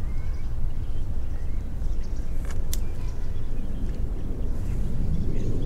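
Outdoor ambience: a steady low rumble with faint bird chirps, and a single sharp click about halfway through.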